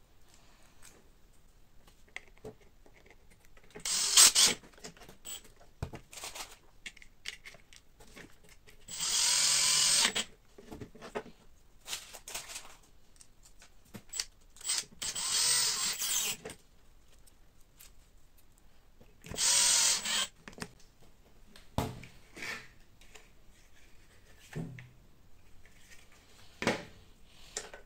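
Makita cordless drill-driver running in four short bursts, each a second or two long, driving M3×12 mm screws into a 3D-printed plastic housing. Small clicks and knocks of plastic parts being handled fall between the bursts.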